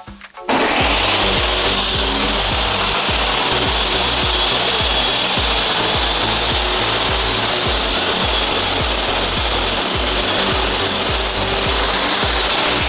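Electric power saw switching on about half a second in, its whine rising as it spins up, then running steadily at full speed while cutting solid wood to size.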